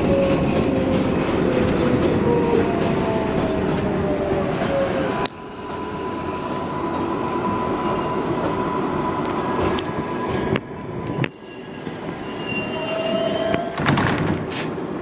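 R142A subway train running on the elevated line, heard from inside the car: a dense rolling rumble with a whine that slides down in pitch over the first few seconds. The noise drops suddenly about five seconds in, then a steady high wheel squeal carries on, with a few sharp clicks from the rails near the end.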